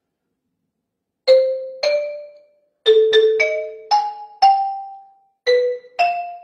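Marimba struck with mallets, playing a cha-cha-chá melody one note at a time, beginning about a second in: two notes, a pause, a quick run of five notes, then two more after another pause. Each note has a sharp attack and rings briefly before fading.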